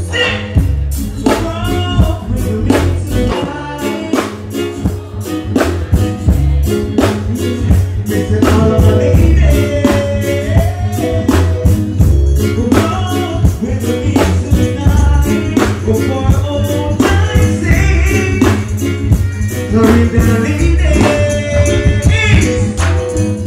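Live stage performance: a man singing into a microphone over a loud backing track with a steady drum beat and heavy bass, played through a concert sound system.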